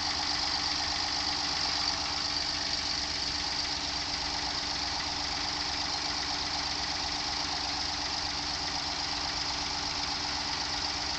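Daihatsu Move (L175S) 660 cc three-cylinder engine idling steadily, with a steady high-pitched hiss above it. This is the engine being checked for an intermittent rattling noise.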